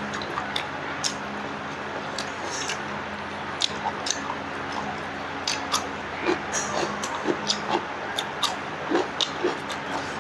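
Close-up eating sounds: wet chewing and lip smacks heard as a string of short, sharp clicks. They are sparse at first and come thick and fast in the second half, over a steady low hum.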